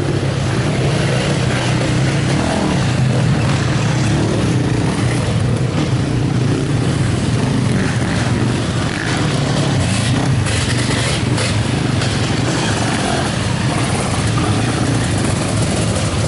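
Engines of motocross sidecar outfits racing past one after another on a dirt track, blending into one continuous, steady drone.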